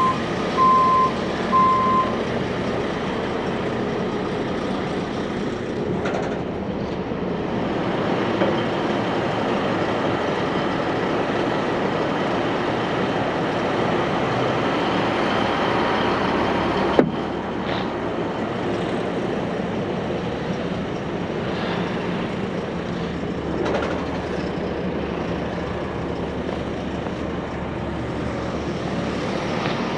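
Idling semi-truck diesel engine running steadily, with a reversing alarm beeping a few times at the start and a single sharp knock about halfway through.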